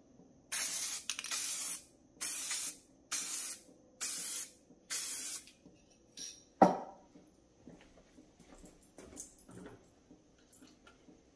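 An aerosol can of hydro-dip activator spraying over the printed film floating on the water, in about six short hissing bursts over some five seconds. A single sharp knock follows about a second later, the loudest sound.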